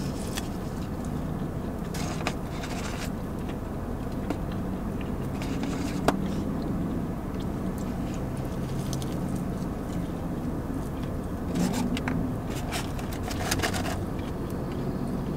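Chewing and biting into a fried chicken finger, with a few short crunching bursts and one sharp tick about six seconds in, over a steady low hum in the car cabin.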